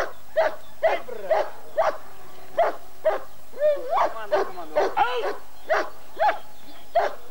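German Shepherd barking repeatedly at a helper's bite sleeve, about two high, sharp barks a second. It is barking to demand the sleeve in protection training.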